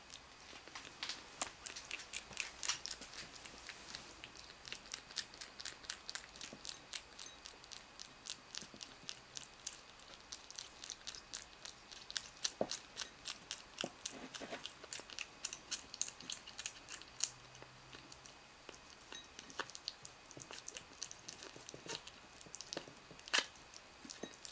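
Kitten chewing its food: a steady run of faint, quick clicks, about four a second, with a few sharper clicks, the sharpest near the end.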